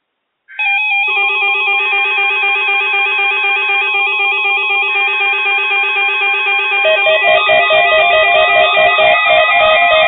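Several weather alert radios sounding their electronic alarms at once after being triggered by the NOAA Weather Radio required weekly test. Overlapping warbling beep tones at different pitches start abruptly, and another alarm joins with a pulsing warble about seven seconds in.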